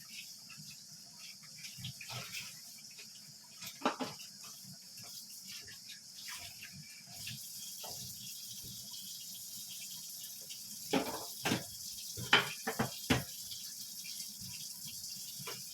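Kitchen work: a steady hiss that grows a little louder about seven seconds in, with scattered clinks and knocks of utensils and a quick run of sharp clinks near the end.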